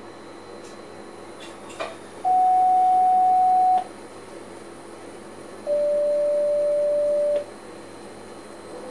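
Two long electronic signal tones in the cab of a stationary SLT train, a higher one and then a lower one, each lasting about a second and a half, over the steady hum of the cab. A short click comes just before the first tone.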